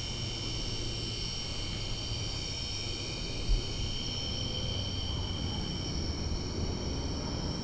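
Night chorus of crickets and other insects, several steady high shrill tones, over a low rumble; a single dull bump about three and a half seconds in.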